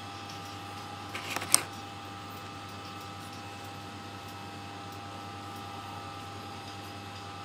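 Small plastic eyeshadow compact being handled and clicked open: a few light clicks, then one sharp snap about a second and a half in. A steady faint hum runs underneath.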